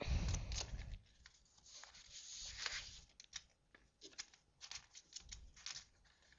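A sheet of A4 paper being rolled by hand into a loose tube around a thinner paper tube: irregular rustling, crinkling and scraping, with a soft low bump at the start.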